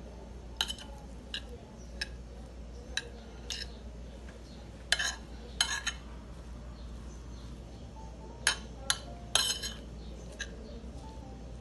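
A metal fork clinking and scraping against a china plate while mixing grated raw chicken with chopped green peppers and seasonings. There are about a dozen sharp clinks at uneven intervals, bunched around the middle and again toward the end.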